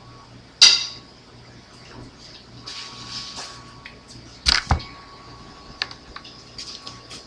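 A few sharp knocks and clicks from things being handled, over a steady low hum. The loudest knock has a brief metallic ring and comes just under a second in; a quick double knock follows about four and a half seconds in, then a few lighter clicks.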